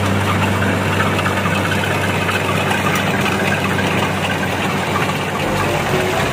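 Kubota DC-70 rice combine harvester running steadily under load as it cuts standing rice: a constant diesel engine drone with the mechanical din of the header and threshing machinery.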